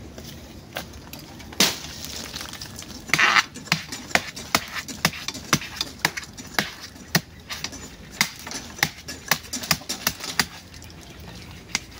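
Knife chopping into the base of a bamboo shoot: a steady run of sharp hacks, about two a second, with a quick cluster of blows a few seconds in.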